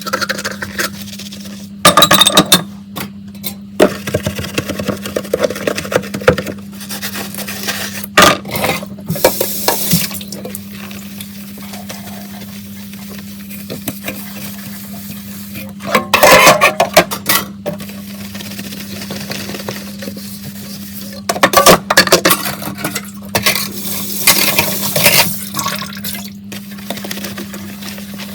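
Dishes being washed by hand: plates, pots and cutlery clink and clatter in short bunches of knocks, with water running and splashing, over a steady low hum.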